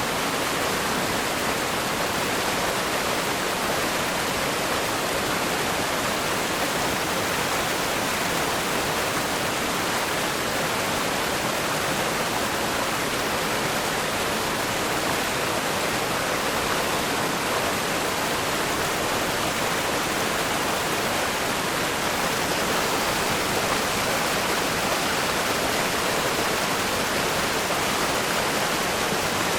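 Fast-flowing river rapids rushing over rocks: a steady, dense roar of white water with no breaks.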